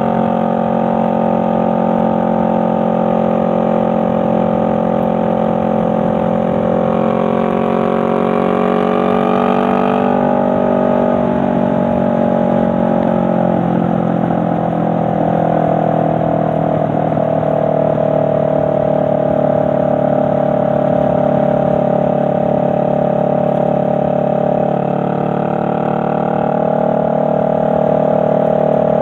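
Honda Rebel 500's parallel-twin engine running while riding. Its pitch rises for a few seconds about a quarter of the way in, falls again, then holds steady.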